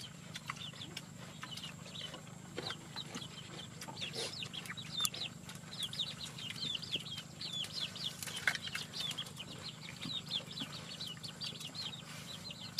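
Chickens cheeping: a fast run of short, high chirps that grows denser in the second half, over scattered light taps and clicks.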